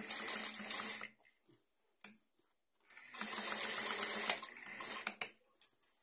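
Electric sewing machine stitching a velcro strip onto fabric in two runs: the first stops about a second in, and the second starts about three seconds in and runs for roughly two seconds before stopping.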